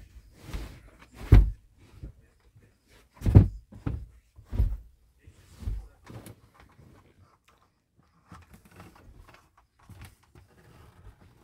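A series of dull thumps and knocks as doors and fittings of a small trailer are handled, the loudest about one and a half and three and a half seconds in, then faint rustling from about eight seconds in.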